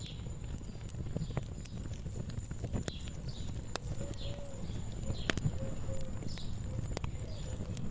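Wood fire crackling, with irregular sharp pops over a steady low rumble. A bird chirps repeatedly in the background.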